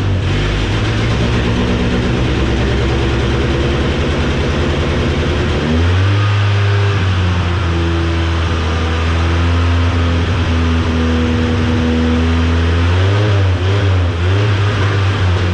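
Fuel-injected Ford Ranger pickup engine running rich and unsteady. It revs up sharply about six seconds in and holds there, then wavers and stumbles again near the end, while the fuel pump is switched on and off to free a stuck-open injector.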